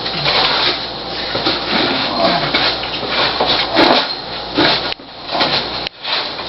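Used cat litter being scraped out of a litter pan and tipped into a plastic bag: a continuous gritty rustling and scraping, with short louder scrapes along the way.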